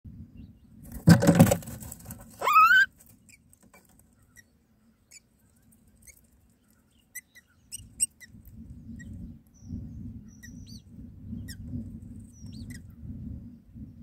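Common myna nestlings making faint, thin, high begging squeaks while the adult myna feeds them. From about eight seconds in, nest material rustles under the adult. About a second in there is a loud brief burst of noise, then a short call rising in pitch.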